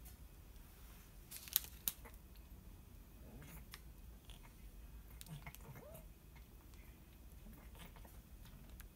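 Clear plastic film wrapping a layered cream pastry being peeled back and handled, with quiet crinkles and rustles. Two sharp clicks come about one and a half seconds in.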